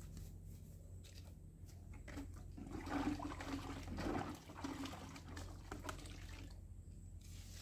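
Liquid poured from a long-handled dipper into a bucket, splashing, loudest about three and again about four seconds in.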